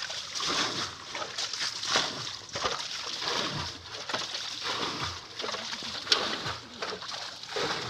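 Shallow muddy water splashing and sloshing irregularly as it is stirred and scooped by hand over a fishing net.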